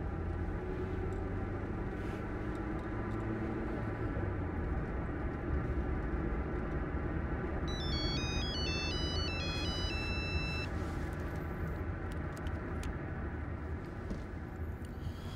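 Steady road rumble inside a moving car. About eight seconds in, a mobile phone rings with a short electronic ringtone melody of stepping high notes that ends on one held note, lasting about three seconds.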